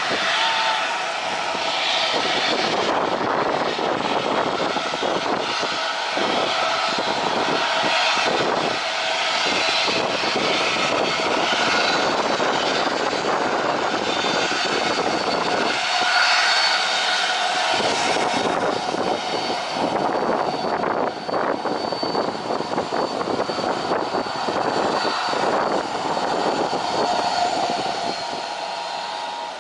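Jet airliner engines running loud and steady, a rushing noise with a high whine, easing off slightly near the end.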